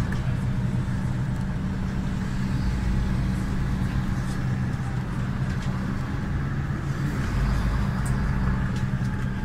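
City bus running along the street, heard from inside the passenger cabin: a steady low engine hum with road and tyre noise. The hum fades briefly about halfway through and then returns.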